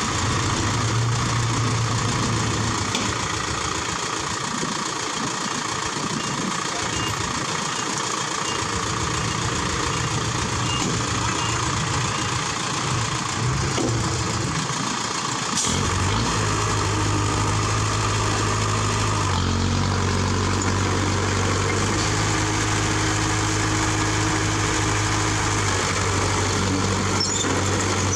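Heavy diesel engines of earthmoving machines running. About halfway through, a deep, steady engine note comes in strongly and holds, shifting slightly in pitch a few seconds later.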